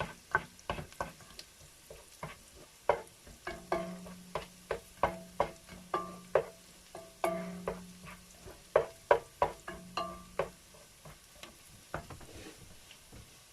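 A cooking utensil stirring garlic and onion sautéing in a metal pan, knocking and scraping against it about two to three times a second, some knocks ringing briefly, over a faint sizzle. The stirring stops near the end.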